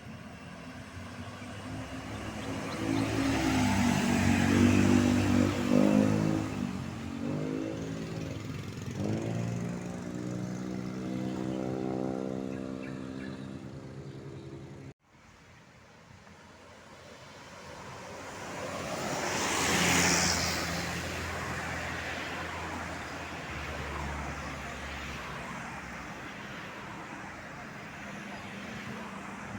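Tour buses driving past on a road: a bus engine passes with its pitch shifting as it goes by, then, after a sudden break, another large vehicle swells past and fades.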